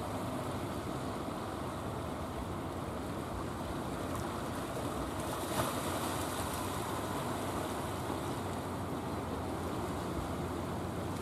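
Sea washing and surf with the low, steady hum of a painted wooden fishing boat's engine as the boat motors past; a light tap about halfway through.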